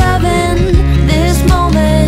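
Background song: a singing voice carrying a gliding melody over steady sustained bass and accompanying instruments.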